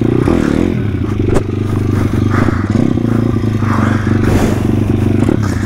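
A YCF 150 SM pit bike's engine runs under throttle as the bike is ridden. There is one sharp click about a second and a half in.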